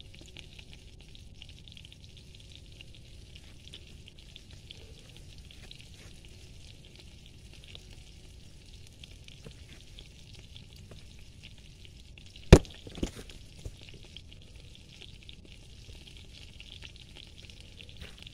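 Campfire crackling steadily, with one loud sharp pop about twelve seconds in and two smaller pops soon after.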